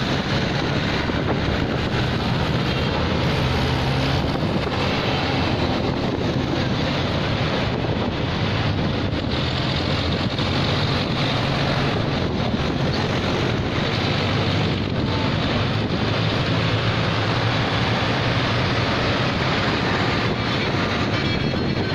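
Wind buffeting the microphone of a moving vehicle, over the low steady hum of tractor engines running on the road.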